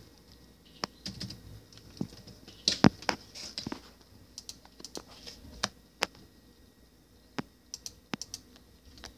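Typing on a computer keyboard: irregular key clicks in short runs with brief pauses between them.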